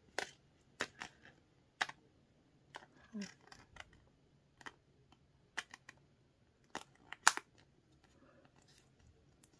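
Clear plastic zip pocket handled while an embossed label strip is pressed onto it: scattered short crinkles and taps of the stiff plastic, the sharpest about seven seconds in.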